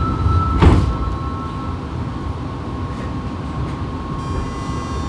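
Fukuoka City Subway 2000-series car standing with a steady under-floor hum and rumble, and a loud thump under a second in. Near the end the Hitachi GTO-VVVF inverter starts up with a high, many-toned whine as the train begins to pull away.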